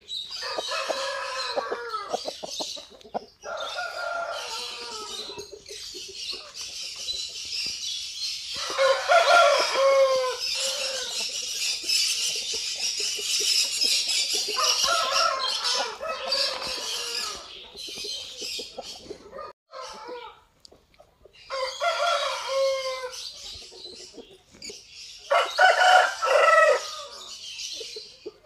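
Roosters crowing several times in long, drawn-out crows, with shorter clucking calls in between.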